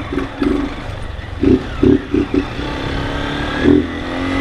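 Honda CG 160 Fan single-cylinder four-stroke engine running with its air filter removed, on the stock exhaust: several short throttle blips in the first couple of seconds, then the revs climb steadily as the bike pulls away, with one more blip near the end.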